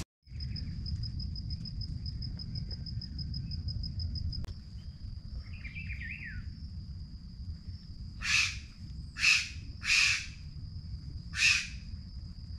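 Wild tropical forest birds calling: a short falling call, then four loud harsh calls about a second apart in the second half. Under them runs a steady high-pitched trill that pulses rapidly for the first few seconds.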